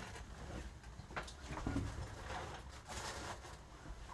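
Quiet room with a few faint, light knocks and rustles of things being handled.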